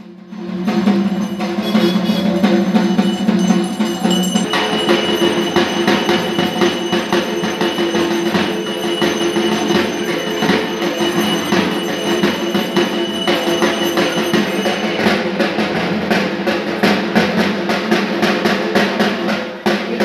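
Dhak, the large barrel drums of Durga Puja, beaten with sticks in a fast, dense, continuous rhythm, over steady ringing tones that shift higher about four seconds in.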